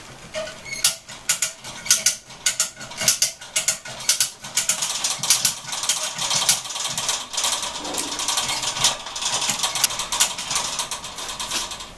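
Hand-operated hoist ratcheting and its chain rattling while it lifts an outboard motor: a long, irregular run of sharp clicks that grows denser after a few seconds.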